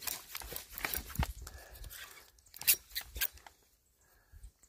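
Crackling and clicks of a fishing rod and reel being worked against a whopper plopper snagged in a tree limb: dense crackle for about the first second and a half, then a few separate clicks.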